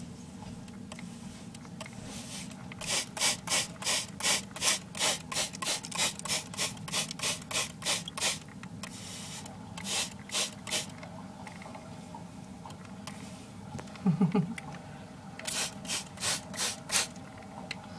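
A hand spray bottle's trigger pumped in quick runs of sprays, about three to four a second, misting water into the enclosure. There are three runs, the longest about five seconds.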